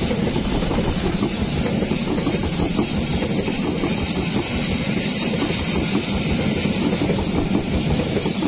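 Economy-premium passenger coaches of a train rolling past close by: a steady rumble of steel wheels on the rails with rapid, continual clatter.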